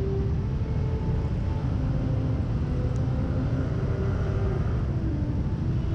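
Steady low rumble of motor scooter and traffic engines in city traffic, with faint engine tones that drift in pitch.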